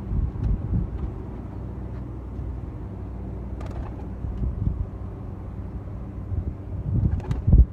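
A steady low motor hum, with gusty rumble of wind on the microphone, a few faint clicks, and a louder low thump near the end.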